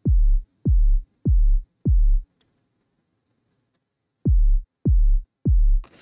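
Stock FL Studio minimal kick drum sample looping at a steady beat, a deep thump about every 0.6 s, played solo through a low-pass EQ that takes away its top end. Four hits, then it stops for about two seconds and starts again with three more.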